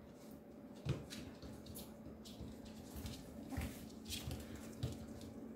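Papillon puppies scuffling as they wrestle on a vinyl floor: scattered soft thumps and scrabbling paws, with a few louder knocks.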